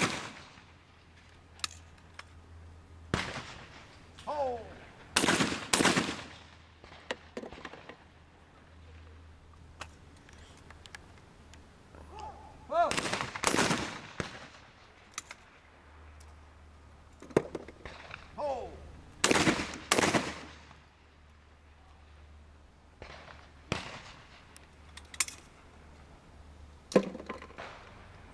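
Shotgun shots fired at clay targets in trap shooting, several of them in quick pairs about a second apart, each followed by a short ringing echo, with smaller knocks in between.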